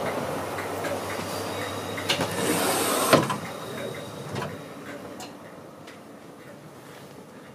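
The automatic sliding door between the vestibule and the saloon of an HST coach opens with a click, a short hiss and a sharp knock about three seconds in. The train and platform rumble then fades to the quieter hum of the saloon.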